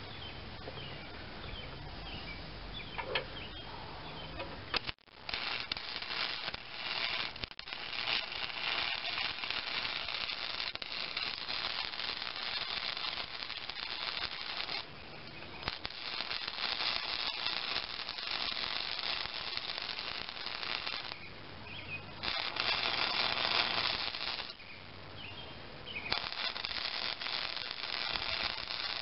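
Electric arc welding on a steel mower deck: a steady crackle that starts about five seconds in and runs in several beads, with short breaks between them.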